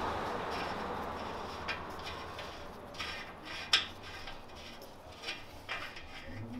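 A handful of light metallic clicks and clinks, spaced irregularly over a fading low hiss, the loudest a little before the four-second mark: hand tools working on metal exhaust fasteners.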